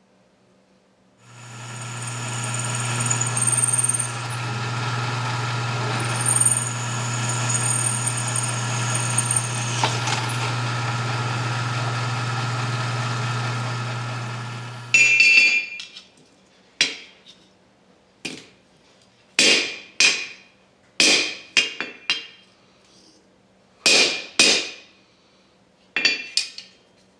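A steady machine sound with a low hum and a high whine runs for about fourteen seconds and then stops, followed by about a dozen separate hammer blows on metal at an uneven pace, each ringing briefly.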